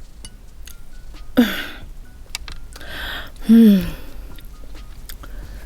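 Quiet eating and mouth noises, small clicks and breaths, with two short wordless vocal sounds from a woman, each falling in pitch. The second, about three and a half seconds in, is the loudest.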